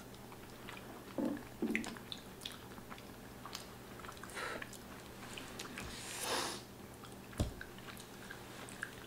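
Soft chewing and wet mouth sounds of people eating saucy macaroni and cheese, with scattered small clicks. A short breathy noise comes about six seconds in, and a single dull knock about a second later.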